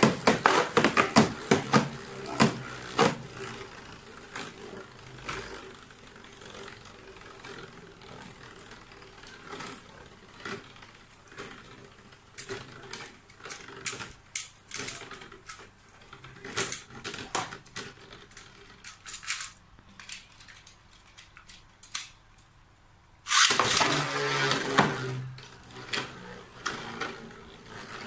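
W5-brand Judgement Joker Beyblade top clicking and rattling as it spins in a plastic stadium: a dense run of clicks as it skids along the bowl's edge in the first few seconds, thinning to scattered ticks as it spins on. A louder noisy sound cuts in suddenly about 23 seconds in and lasts a couple of seconds.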